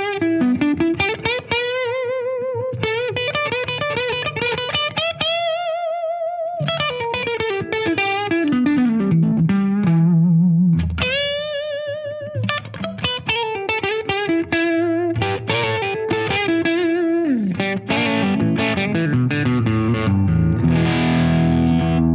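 Gibson solid-body electric guitar played through a distorted amp: a lead line of single notes with bends and wide vibrato on the held notes, moving into strummed chords near the end.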